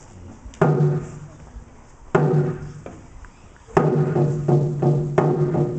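A drum beaten with a low, ringing tone: slow single beats about a second and a half apart, then a quicker steady beat of about three a second from nearly four seconds in.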